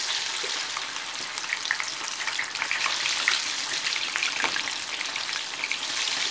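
Egg-and-cornflour-battered chicken lollipops deep-frying in very hot oil in an iron kadhai, freshly put in: a steady sizzle with scattered crackles and pops.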